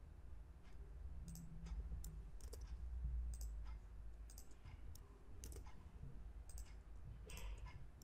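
Faint computer mouse clicks and keyboard key presses, about a dozen sharp clicks spread irregularly, made while selecting and grouping shapes on screen.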